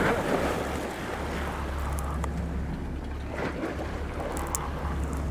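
48 Bertram sportfishing boat's engines running with a steady low hum as the boat backs down, with water churning and splashing at the stern and wind on the microphone.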